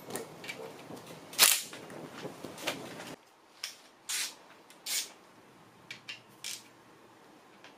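Sharp metallic clicks and clinks from hand tools, a socket on an extension and a ratchet, being set on and turned on bolts in the bottom end of a Honda K24A engine block. They come at irregular intervals, the loudest about one and a half seconds in, with a quieter spell between them in the second half.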